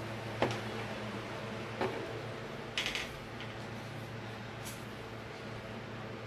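Quiet room tone with a steady low hum and a few faint light clicks and knocks, like small objects being handled on a table.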